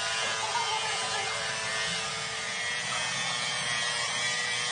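Electric angle grinder running steadily with an abrasive disc held against a chrome hydraulic cylinder rod, polishing it: a continuous motor whine over an abrasive hiss.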